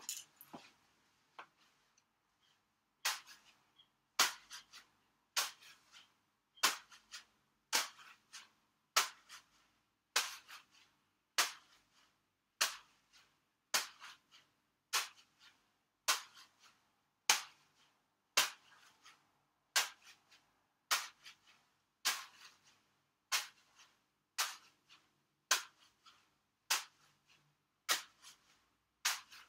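A single juggling ball tossed from hand to hand, each catch a sharp slap in the palm about once a second in a steady, even rhythm, often with a fainter second tap just after. The catches begin about three seconds in.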